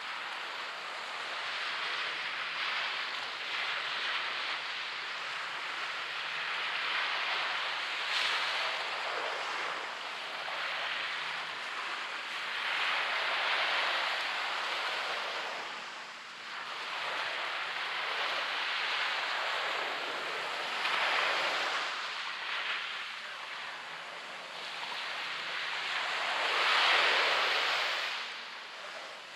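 Waves breaking and washing up on a beach, one swell of surf about every six to seven seconds, the loudest near the end.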